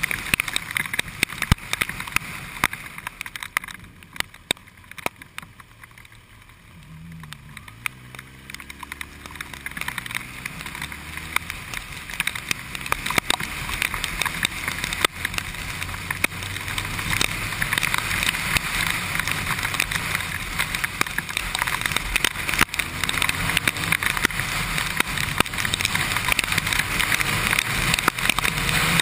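Kawasaki Ninja sportbike engine at low speed in traffic, quieter for a few seconds, then revving up with rising pitch as the bike pulls away about a quarter of the way in. Raindrops tap sharply on the camera throughout, and a hiss of wind and wet road grows louder as speed builds.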